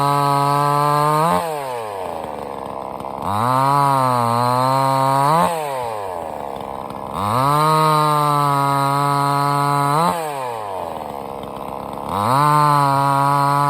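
Sungel 58 cc two-stroke chainsaw revved to a high, steady pitch and let fall back toward idle, over and over: it drops off about 1.5, 5.5 and 10 seconds in and climbs again around 3, 7 and 12 seconds. During the second run the pitch sags and then recovers, the way it does when it bogs under load in a cut.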